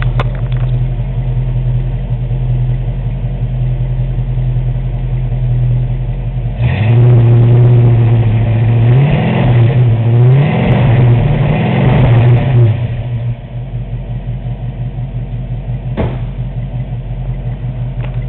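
1968 Ford Mustang's 289 V8, with its stock single exhaust, idling steadily. About a third of the way in it picks up, is revved three times, then drops back to idle. A single sharp click comes near the end.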